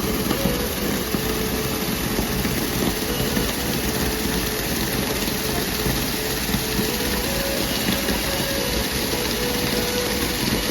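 Waterfall, water pouring and splashing in a steady roar.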